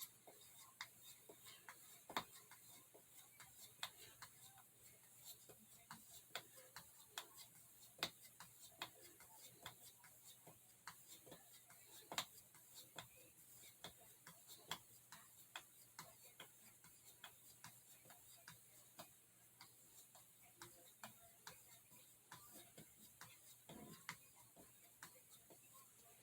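Near silence broken by faint, irregular small ticks and clicks, about one to three a second.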